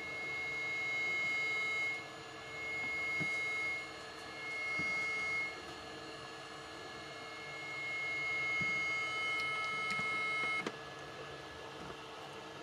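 A 432 Hz test tone from a homemade flat spiral 'pancake' coil speaker. It swells up and fades four times, then stops about ten and a half seconds in.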